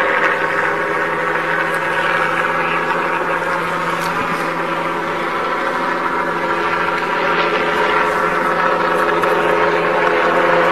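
Police helicopter hovering overhead, a steady engine-and-rotor drone with no break.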